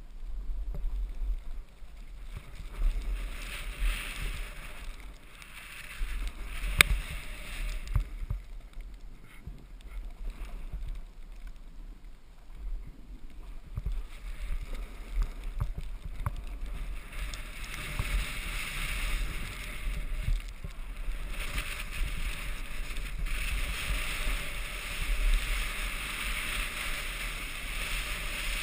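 Wind buffeting the microphone over the scrape and hiss of skis or a snowboard sliding on snow, with the hiss growing louder in the last ten seconds and one sharp knock about seven seconds in.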